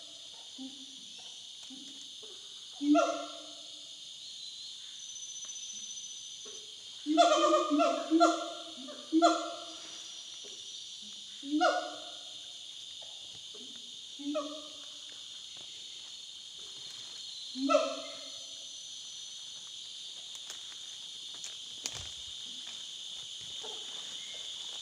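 Gibbons calling: about seven loud hooting calls, each rising in pitch, a few seconds apart, with three in quick succession near the middle.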